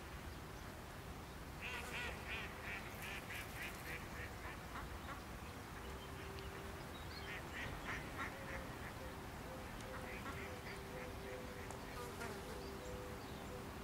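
A bird calling in rapid series of short, quack-like notes, about five a second, in several bursts of two or three seconds each. Two faint steady tones come in about six seconds in.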